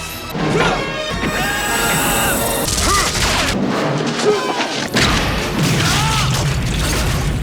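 Action-film soundtrack: a man's short pained grunts and yells over film music, with crashes and heavy impacts.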